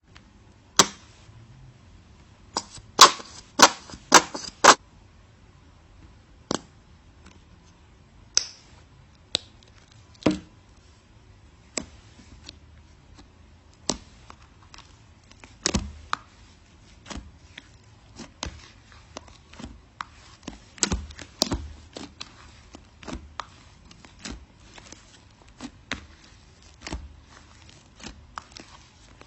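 A long run of irregular sharp clicks and knocks, like small objects being handled and set down, with the loudest cluster about three to five seconds in.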